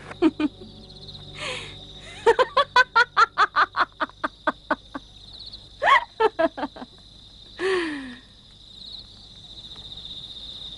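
A woman laughing: a long run of quick, even 'ha-ha' pulses lasting a few seconds, then a rising cry of laughter and a falling one, over crickets trilling steadily at a high pitch.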